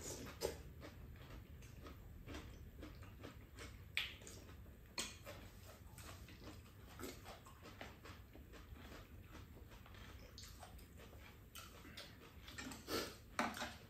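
Quiet eating sounds: scattered light clicks of spoons and chopsticks against bowls, with soft chewing.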